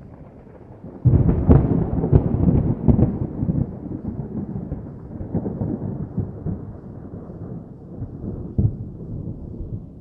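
Thunder: a sudden crack about a second in, breaking into a crackling, rolling rumble that slowly fades, with a smaller boom near the end.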